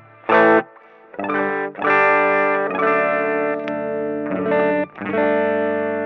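Electric guitar played through the Ampero II Stomp's Treble Ranger, a model of the Dallas Rangemaster treble booster, giving a piercing, treble-heavy tone. Two short stabbed chords come first, then a run of ringing chords that change every second or so.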